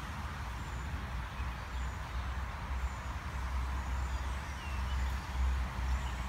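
Outdoor ambience: a steady low rumble, like wind on the microphone, with a few faint bird chirps.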